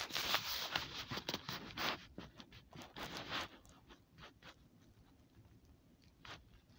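Scratching and rustling handling noise close to the microphone, as if it were being rubbed or covered: a dense run of scrapes and clicks for about three and a half seconds, then a few faint scrapes.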